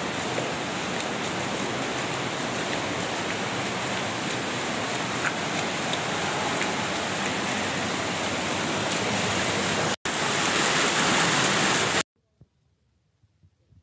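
Muddy floodwater rushing across a church floor and around the pews: a steady rushing noise. It drops out for an instant about ten seconds in, returns a little louder, then cuts off suddenly about twelve seconds in.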